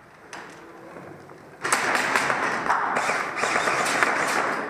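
Airsoft guns firing a rapid volley, a dense crackle of shots and BB hits that starts suddenly about a second and a half in and keeps going.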